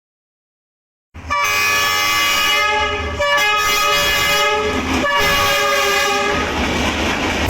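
Train horn blowing a steady tone over the rumble of the train, starting about a second in. It is sounded in three blasts with brief breaks between them, and after the last blast only the rumble of the train continues.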